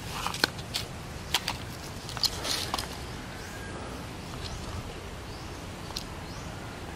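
Footsteps over dry leaf litter and soil, with a few sharp snaps in the first three seconds and fainter ones after, over a low steady outdoor rumble.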